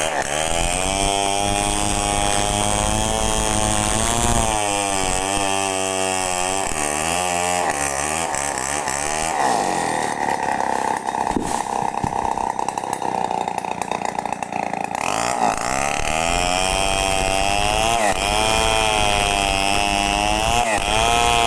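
Chainsaw running and cutting into a coconut palm trunk, its engine pitch wavering up and down as the revs rise and fall under load, with a higher, steadier stretch in the middle.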